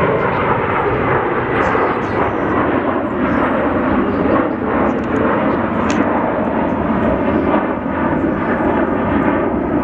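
Jet airliner engines at high power, a loud steady noise with no break, typical of a heavy jet on its takeoff run.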